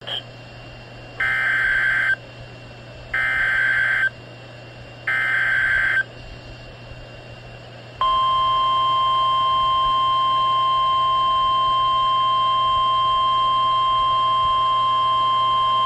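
NOAA Weather Radio Emergency Alert System activation: three bursts of SAME digital header data, each about a second long and about two seconds apart, then the steady single-pitch warning alarm tone starts about two seconds later and holds. It signals that a warning is about to be broadcast.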